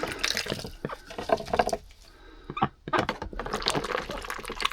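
Ducks splashing and dabbling with their bills in a container of water, giving a quick patter of wet clicks and spatters, with a brief lull about two seconds in.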